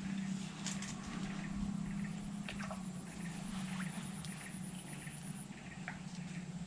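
A steady low drone, like a distant engine, throughout, with scattered light clicks and taps of fishing tackle being handled close by.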